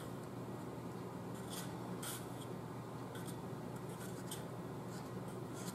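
A spoon stirring egg drop soup in a bowl: faint scraping against the bowl, with a few light clicks.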